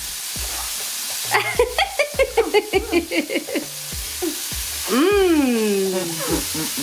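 Chopped sausages and vegetables sizzling in a wok while a wooden spoon stirs and knocks against the pan. A voice gives a quick run of short syllables about a second in, and one long call falling in pitch about five seconds in.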